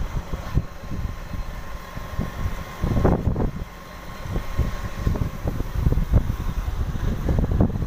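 Wind rumbling over a phone microphone on a moving motorcycle, with the bike's engine running underneath; it swells briefly about three seconds in.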